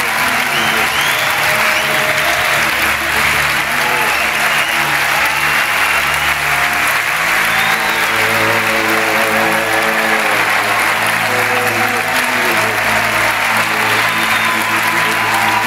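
Large theatre audience applauding steadily over background music of sustained tones; the music's bass line changes about seven seconds in.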